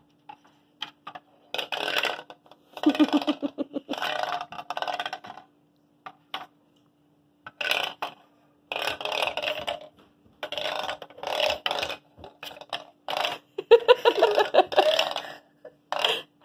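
A small marble rolling and rattling over the studs and against the brick walls of a Lego marble maze as it is tilted, in several runs of rapid clicking with short pauses between. A voice makes a couple of short grunting sounds, the loudest one near the end.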